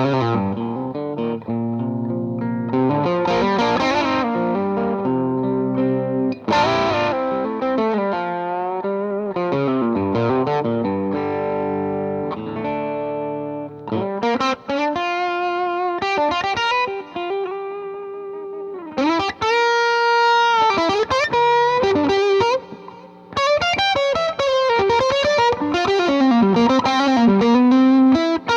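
Les Paul electric guitar played through distortion and effects: sustained chords and notes for the first half, then a lead line of single notes with pitch bends and vibrato.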